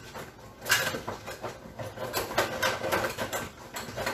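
Rummaging through a kitchen drawer: a sharp knock a little under a second in, then a quick run of rustling and clicking as packages and boxes inside are moved about.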